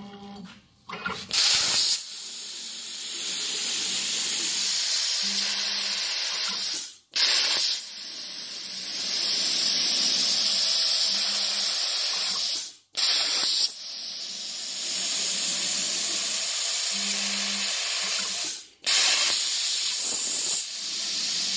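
Hypertherm Powermax85 plasma torch on a CNC table firing its arc into 1-inch steel plate four times: each a steady hiss of about five seconds that cuts off suddenly, with a short sharper burst as each one starts. Each firing is too short to pierce all the way through the plate.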